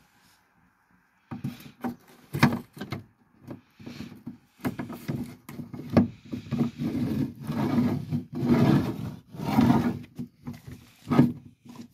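Metal lower roller bracket of an Opel Vivaro sliding door scraping and knocking against the van's body as it is worked into its seat. The irregular knocks and rubs begin about a second in.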